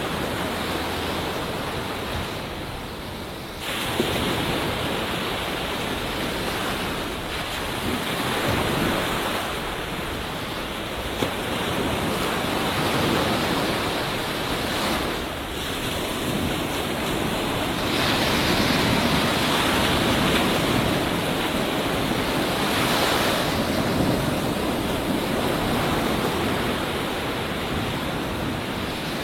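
Ocean surf: waves breaking and washing on a beach in a steady rush of white noise that swells and ebbs every few seconds, with a short lull about three seconds in before the next wave breaks.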